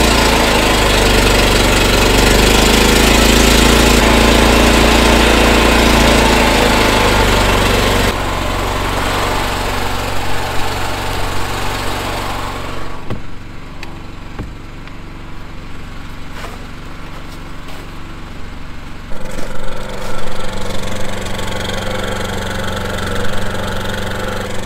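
Predator 8750 inverter generator's engine, just started and running steadily at full speed with its electronic economy throttle switched off. About eight seconds in the sound drops, heard from outside the shed and muffled for a while, then louder again near the end by the exhaust outlet.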